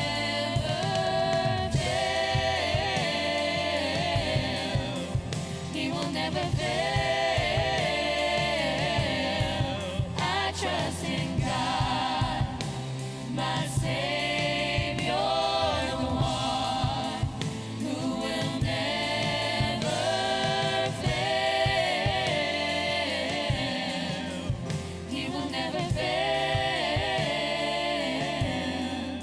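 Worship music: a band with a steady beat and several voices singing a gospel song together.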